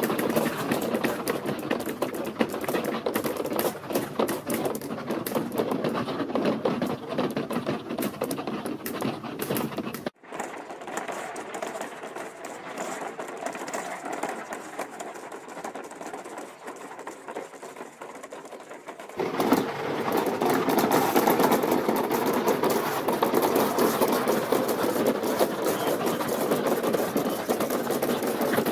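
Many marbles rolling and clattering along plastic marble-run track, a dense rattle of small clicks. About ten seconds in it drops suddenly to a quieter, thinner rattle, and about nine seconds later it comes back at full strength.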